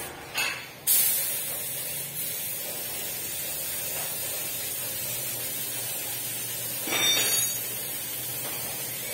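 Compressed-air spray gun with a hanging suction-feed cup, spraying paint. There are two short trigger bursts in the first second, then a steady hiss of air and atomised paint that swells briefly about seven seconds in.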